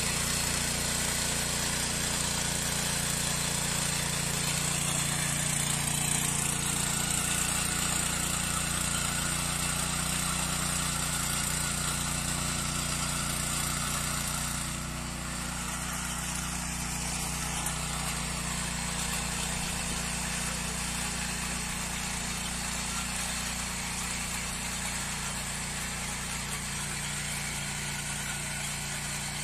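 Walk-behind rotary tiller's small engine running steadily under load as its tines churn through garden soil. It gets a little quieter about halfway through.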